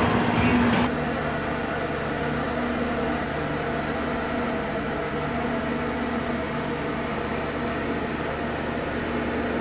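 Steady hum and whoosh of an air-conditioning unit running, a fan and motor drone with a few steady low tones. About a second in, louder street noise cuts off abruptly.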